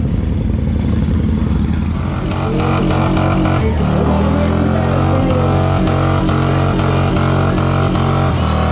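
Motorcycle engines rumbling on a street; then, about two seconds in, a motorcycle engine held at steady high revs during a burnout, a loud, even drone.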